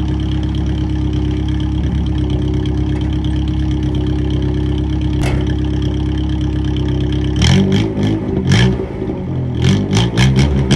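1978 Toyota Corona's straight-piped engine idling steadily, then revved in a series of quick blips from about seven and a half seconds in.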